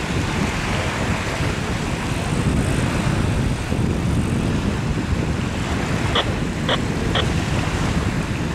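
Wind rumbling and hissing on the microphone, with three short, high beeps about half a second apart a little after six seconds in.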